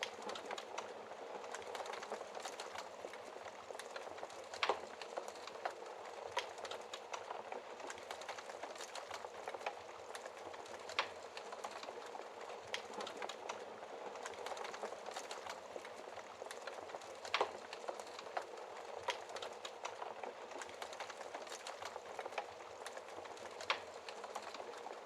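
Wood fire burning in a fireplace: a steady hiss of flames with irregular crackles and pops, a few sharper pops standing out about every six seconds.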